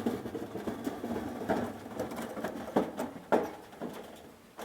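A wooden canopy frame with tin roof sheets rattling and creaking as it is lifted, with several sharp knocks partway through, a few about a second apart, as its hinged support arms fold down.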